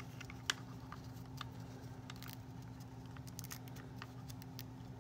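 Light clicks and rustles of hands handling a plastic fashion doll and its fabric top, scattered and irregular, with one sharper click about half a second in, over a steady low hum.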